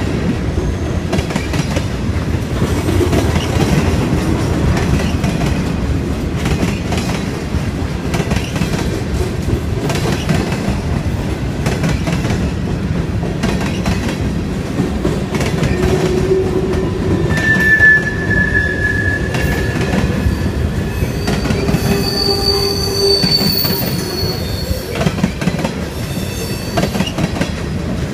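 Freight train cars rolling past at close range: steady wheel-on-rail noise. There is a brief wheel squeal about two-thirds of the way through and another, higher squeal a few seconds later.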